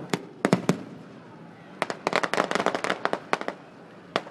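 Fireworks exploding: a few sharp bangs in the first second, then a dense run of rapid crackling reports for about a second and a half, and one more bang near the end.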